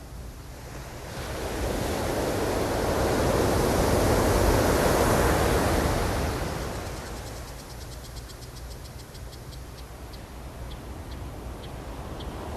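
Ocean wave breaking and washing up the shore, swelling about a second in and fading away over several seconds. A run of faint high ticks follows in the second half, slowing toward the end.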